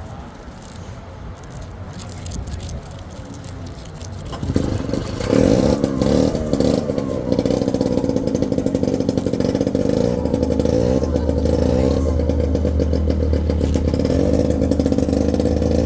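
A 1950 Mall Model 11 two-man chainsaw, with an 8-cubic-inch engine, starts up about four seconds in and then runs loud and steady.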